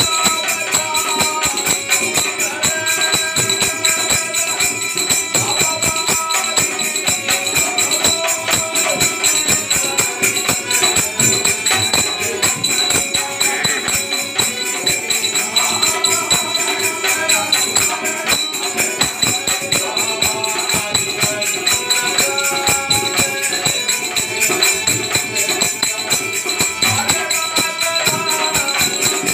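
Devotional bhajan music played live: small brass hand cymbals (manjira) clash in a steady rhythm with a ringing shimmer, over a dholak drum and a harmonium melody.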